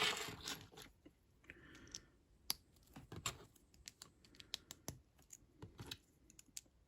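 LEGO minifigure pieces being handled and fitted together: faint, irregular light plastic clicks and taps, with a brief soft rustle near the start.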